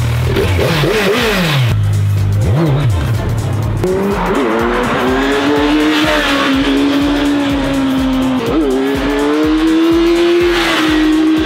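Kawasaki Z1000 inline-four, fitted with a single Akrapovic slip-on, revved in quick blips, then held at high revs with a steady note that drifts slowly and dips briefly. Background music with a steady beat plays underneath.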